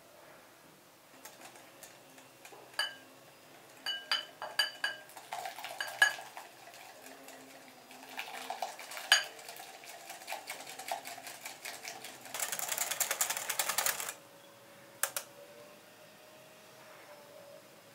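A wire whisk clinking and ringing against a glass bowl as milk is poured in and whisked into an egg mixture, with a fast run of rapid whisking strokes a little past the middle.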